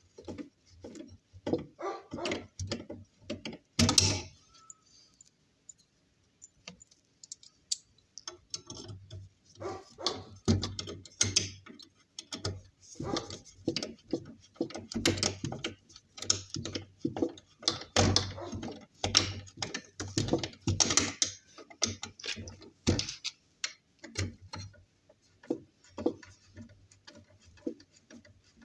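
Screwdriver driving screws through a metal angle bracket into chipboard: irregular short clicks, scrapes and creaks of the tool, screw and bracket, with the loudest knock about four seconds in.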